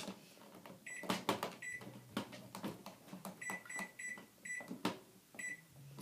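LG microwave oven keypad beeping as its buttons are pressed: about seven short beeps, some in quick succession, mixed with light clicks and knocks. A low steady hum begins near the end.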